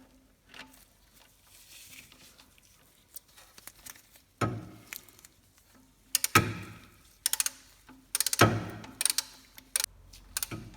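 Metal tool clanks and clicks as the gearbox fill plug is refitted and tightened. Three louder clanks with a short ring come about four, six and eight seconds in, with runs of sharp clicks between them.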